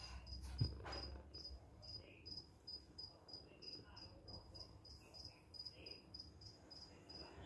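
A faint high chirp repeating steadily about three times a second, with a few soft handling bumps in the first second or so.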